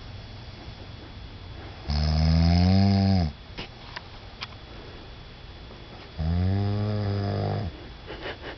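A sleeping man snoring: two long snores about four seconds apart, each lasting about a second and a half and dropping in pitch as it ends.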